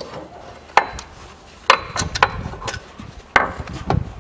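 Five or so sharp, irregularly spaced knocks and clacks of hand tools and parts being handled under a car, with rubbing and handling noise between them.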